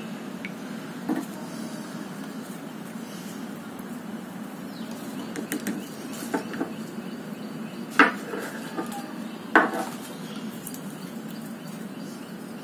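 Scattered sharp clinks and knocks of hard objects being handled over a steady low hum; the two loudest come past the middle, about a second and a half apart.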